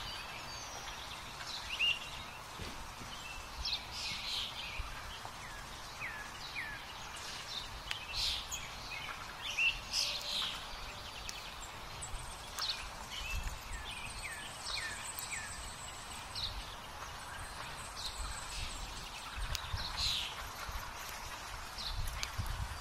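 Woodland birds singing and calling, with many short chirps and brief call notes scattered throughout over a steady low background rumble.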